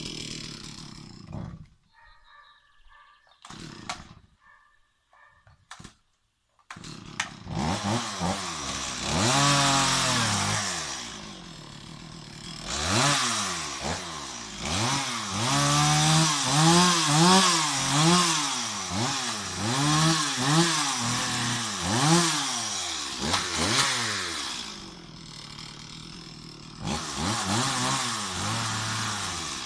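Stihl MS 260 two-stroke chainsaw idling, falling quiet for about five seconds, then running again. It is revved up and down over and over, dropping back to idle between the revs.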